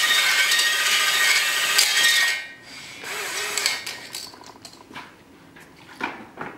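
A drill spinning a three-stone cylinder hone inside a cylinder bore of a Chevrolet L83 5.3 V8 block, the diesel-wetted stones grinding against the cylinder wall to break the glaze. It stops suddenly a little over two seconds in, followed by a few light clicks and knocks as the hone is handled.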